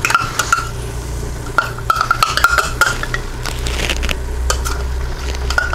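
A utensil scraping and clinking against a measuring cup as the last of the barbecue sauce is scraped into a hot Instant Pot inner pot, with light sizzling from the pot underneath. The scrapes and clicks come irregularly.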